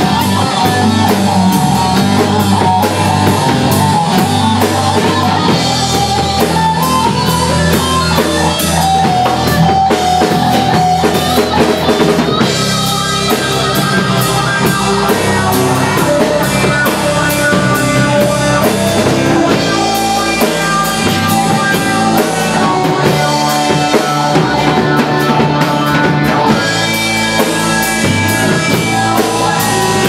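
Live rock band playing an instrumental passage: a violin melody over strummed acoustic guitar, bass and drum kit. The arrangement shifts about twelve seconds in.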